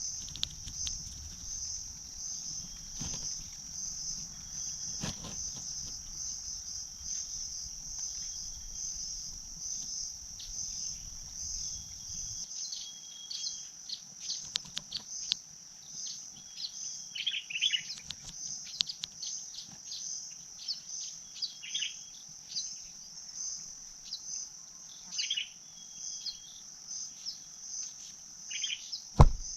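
A steady, high-pitched, pulsing insect chorus, like crickets, with short falling bird chirps scattered through the second half. A sharp knock comes just before the end.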